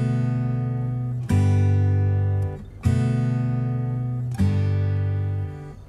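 Background music: acoustic guitar chords strummed about every second and a half, each left to ring and fade.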